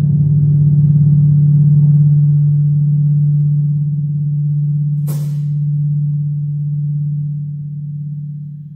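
Deep, steady electronic drone from the Distortions Unlimited Mutant animatronic's soundtrack, easing off near the end. A short sharp hiss cuts in about five seconds in.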